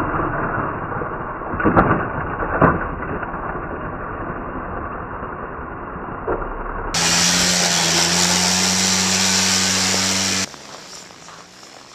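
Youth mini quad's small engine running, with two loud thumps about two seconds in, half a second apart, as the quad lands from a jump onto packed snow. Later the engine runs steadily at a constant pitch, then turns quieter near the end with its pitch slowly rising.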